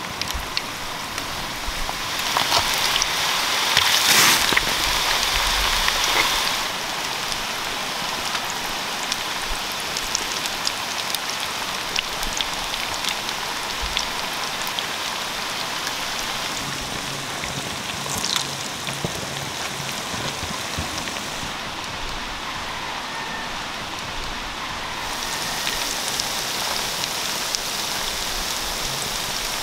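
Sweet potato puffs frying in hot oil in a shallow pan: a steady sizzle full of fine crackles and small pops, louder for a few seconds near the start.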